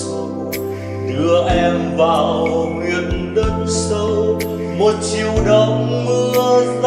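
Music: a karaoke recording of a Vietnamese ballad, with sustained chords over bass notes that change every second or two.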